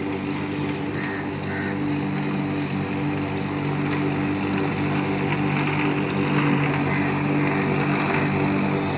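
Corded electric rotary lawn mower running steadily at a constant hum while being pushed through grass.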